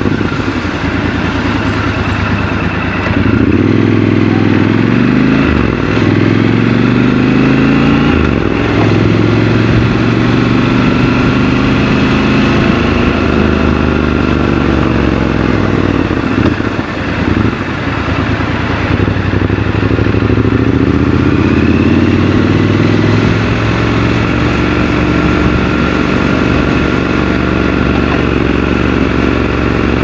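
Triumph Scrambler 1200 XC's parallel-twin engine, recorded raw from the rider's seat, pulling hard and running up through the gears. Its note rises and falls again and again with each shift, eases off briefly past the middle, then picks up again.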